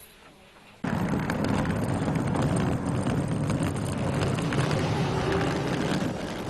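Steady noisy rumble, like road traffic, cutting in suddenly about a second in.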